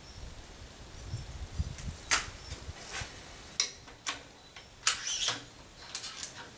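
Hands working a bolt-action rifle set in a steel recoil-testing jig: a series of about seven sharp metallic clicks and clacks from the action and jig, with a brief low rumble before the first click.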